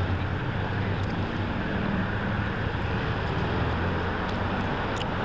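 A large engine running steadily: a low hum under an even, noisy rush.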